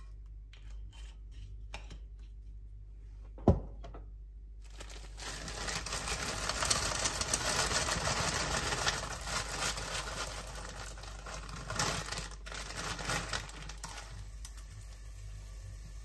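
Diced onion poured from a plastic bag into a pot, the pieces rattling in while the bag crinkles, with a single sharp knock just before it starts.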